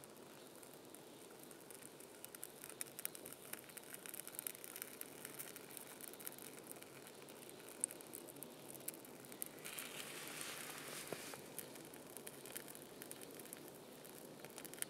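Thin twig kindling in the split of a Finnish candle log catching fire: faint, irregular crackling, with a soft hiss about ten seconds in.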